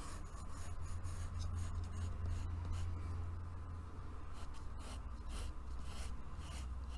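Pencil scratching on paper in many short, quick strokes as a design is sketched, over a steady low hum.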